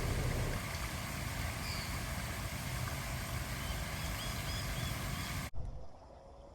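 Steady outdoor background noise, a low rumble with hiss, with a few faint bird chirps over it; it cuts off suddenly about five and a half seconds in, leaving a much quieter background.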